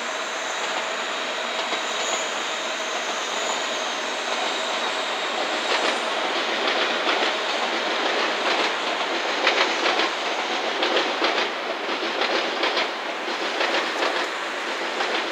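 JNR 115 series electric multiple unit rolling slowly over pointwork, a steady rolling noise with a faint high wheel squeal in the first seconds. From about six seconds in, irregular clicks of the wheels over rail joints and points come thick and fast.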